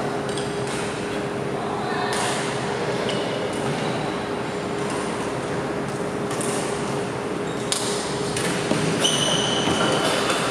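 Badminton rackets striking a shuttlecock back and forth in a rally, a sharp crack every second or two with the echo of a large hall. Near the end, a shoe squeaks briefly on the wooden court floor, over a steady hum.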